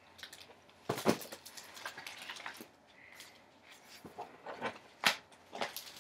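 Handling noises: a series of sharp knocks and clicks with rustling between them, the loudest about a second in and again near the end.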